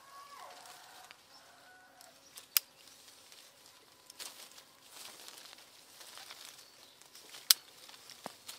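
Scissors snipping through citrus fruit stems, two sharp snips about two and a half and seven and a half seconds in, with leaves and branches rustling in between. A short falling animal call, like a distant bleat, comes at the start.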